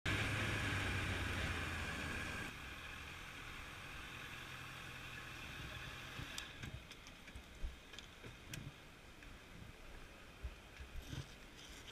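Honda CBR650F inline-four motorcycle engine running under way, with wind noise on the microphone. The noise drops off abruptly about two and a half seconds in, leaving a quieter steady background. From the middle on there are scattered light clicks and knocks.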